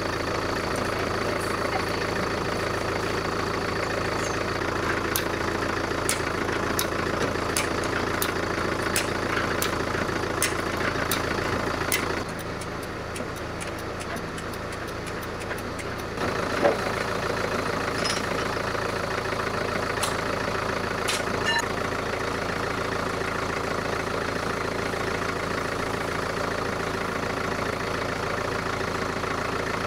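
A motor running steadily throughout, with a run of light clicks every second or less in the first half. It drops in level for a few seconds past the middle, then comes back with a single sharp knock.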